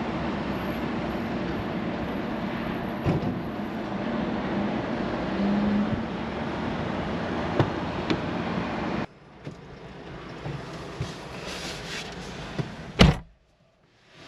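Steady tyre and wind rumble of a moving BMW iX3 electric car, with no engine note. After an abrupt cut it goes quieter, with a few clicks, and one loud thump near the end.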